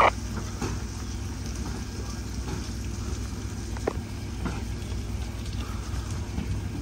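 Steady low rumble of fire apparatus diesel engines running, with a few faint ticks about half a second, four and four and a half seconds in.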